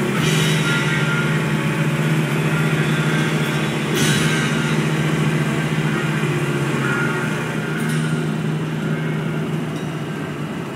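Music playing loud through a car's sound system: an instrumental stretch of a song with held low notes and a crash about every four seconds.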